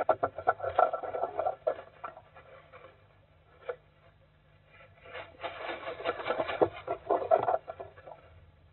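Little owl scratching and shuffling in the wood shavings of a nest box: a bout of dry rustling scratches, a pause with a single click, then a second bout about five seconds in.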